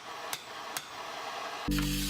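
Hand hammer striking a rivet twice, about half a second apart, as the rivets are set in the treadle parts. Near the end a steady hum with a hiss above it starts abruptly.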